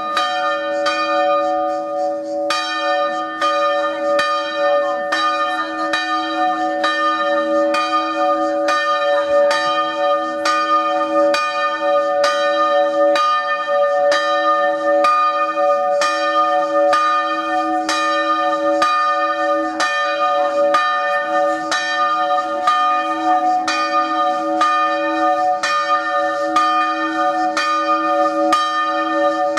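Church bells, cast in 1850, in an electrified three-bell tower, swinging at full swing (a distesa). They ring a steady run of strokes, about two a second, that starts suddenly and keeps going, with the bells' tones holding between strokes.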